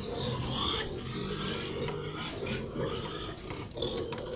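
Domestic pigs making a continuous, noisy din that starts abruptly.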